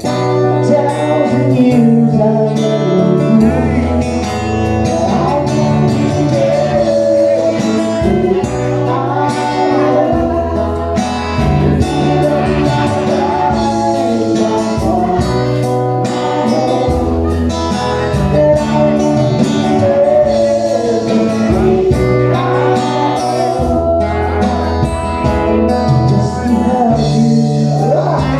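Band music: guitars over a steady bass line that changes note every second or two, with a wavering melody on top.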